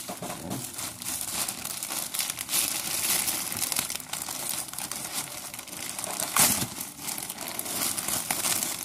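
Plastic courier mailer bag crinkling as hands pull and tug it open, with a louder crinkle about six and a half seconds in.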